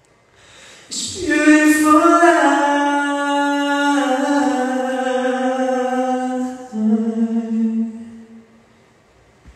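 A man singing a cappella, with no backing music: a few long held notes that step down in pitch, starting about a second in and fading out near the end.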